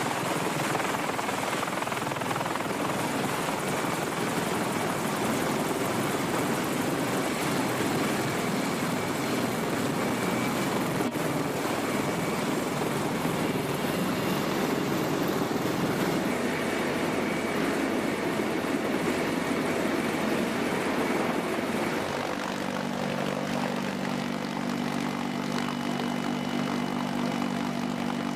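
CH-53E Super Stallion helicopter's three turboshaft engines and rotor running: a dense, steady rushing noise. About 22 seconds in, it changes to a lower, steadier drone with a clear hum.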